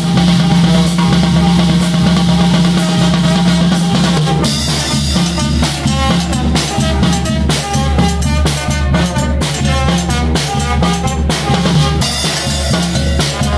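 A live Mexican brass banda playing. Brass timbales, bass drum and cymbal keep the rhythm under trumpets and low brass. The first four seconds or so are a long held chord with a cymbal wash, and then a steady driving beat starts.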